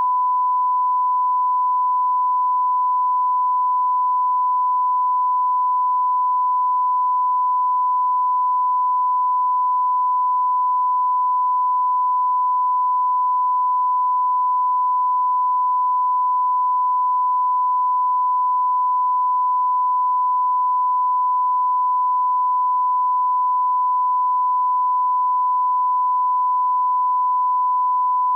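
Continuous censor bleep: one steady, unbroken beep tone at a constant pitch and level, masking a stream of swearing.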